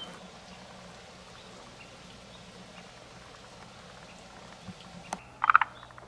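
Faint outdoor quiet, then about five seconds in a short, loud frog call: a quick run of pulses lasting about half a second, from a forest green tree frog (Moriao frog) at its breeding pond.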